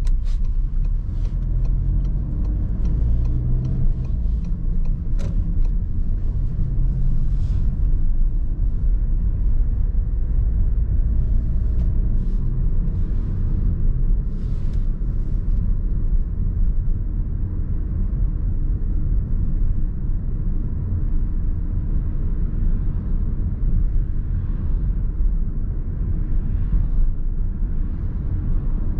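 Car traffic: a steady low rumble of engine and road noise, with scattered short clicks and brief hissing passes over the first fifteen seconds or so.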